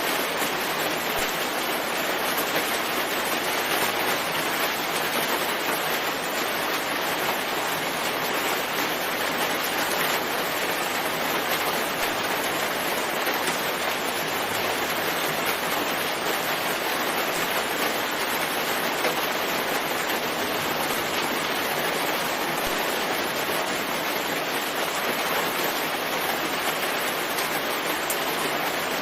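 Steady rain falling on a forest, a dense even hiss of water that holds unchanged throughout.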